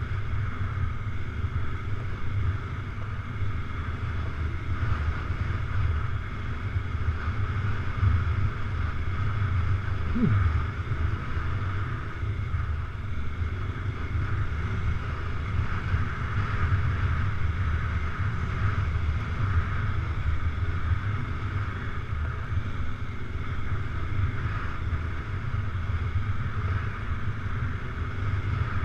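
Adventure motorcycle engine running steadily while riding a sandy dirt track, with wind noise on the microphone. About ten seconds in, the engine pitch drops briefly.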